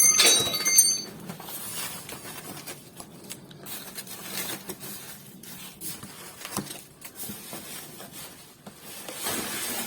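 Hard pieces clinking in a stainless steel drop-in fire pan, with a brief high ringing in the first second, then softer rattling and handling noise; the stones sound like glass.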